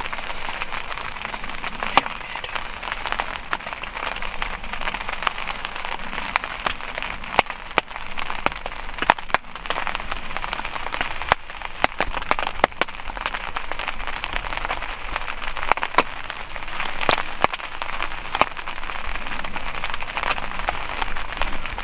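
Steady rain, with many individual drops tapping sharply on a nearby surface.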